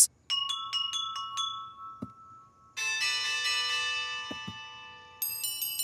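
Cartoon bell chimes for ringing bell peppers: a quick run of light bell strikes, then a fuller chord of bells ringing out and slowly fading, then another run of high bell strikes near the end.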